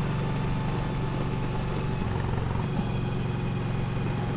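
Kawasaki Vulcan Nomad's V-twin engine running steadily as the motorcycle is ridden, a low, even, pulsing drone.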